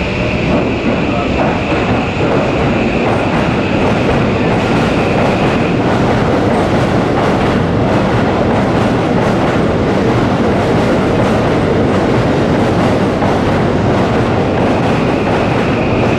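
Electric commuter train moving along a station platform, its wheels clicking over rail joints in a steady run of ticks through the middle, with a thin high steady tone near the start and end.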